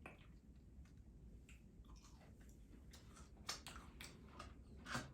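Faint close-miked chewing of food, with soft wet mouth clicks and smacks. Two louder smacks come about three and a half and five seconds in.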